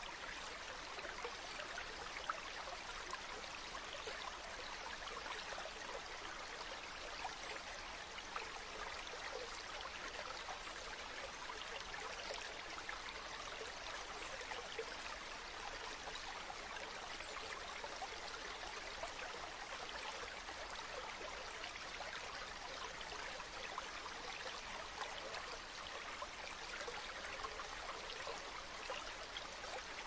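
River water flowing steadily: an even, continuous rush with fine bubbling texture and no pauses.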